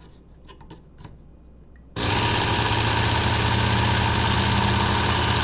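Work Sharp Ken Onion Edition belt sharpener switched on about two seconds in, its small motor and fine X4 abrasive belt then running steadily with a bright hiss over a low hum. A few faint clicks of handling come before it starts.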